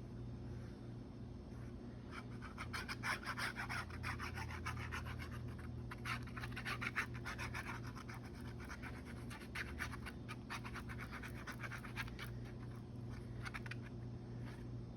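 Nozzle of a fast grab tacky glue bottle scratching across a board book page as glue is laid down, in short, uneven strokes, busiest in the first half, over a steady low hum.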